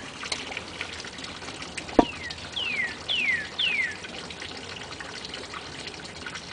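A songbird calls four clear whistles in a row, each sliding down in pitch, about two a second, starting about two seconds in. Just before them comes a single sharp knock, the loudest sound.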